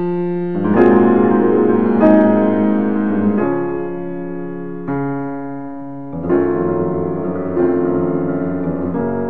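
Background piano music: slow chords, each struck and left to fade, a new one about every second and a half.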